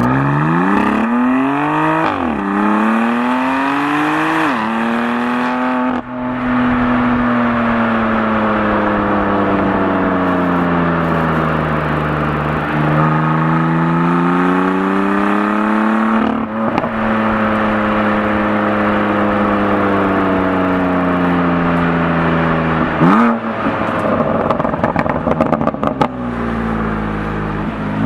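BMW M4 Competition's S55 twin-turbo inline-six accelerating hard through two quick upshifts, then cruising with engine speed gently rising and falling. Near the end the revs flare and drop and the exhaust crackles for a few seconds on the overrun.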